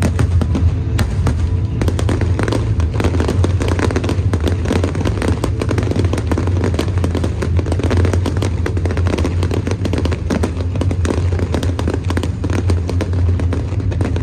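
Fireworks display going off, with dense rapid crackling and popping bursts over a steady low rumble.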